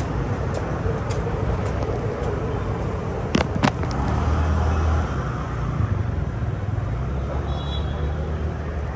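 Road traffic passing on a city street: a steady rumble of vehicle engines and tyres. Two sharp clicks come about three and a half seconds in.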